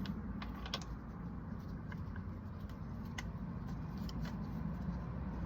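A few faint metal clicks and scrapes as a compression-tester fitting is worked into a motorcycle spark plug hole, over a steady low background rumble.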